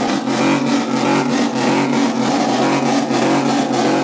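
A car engine revved hard and held at high rpm, a steady drone that dips briefly many times, as at a burnout.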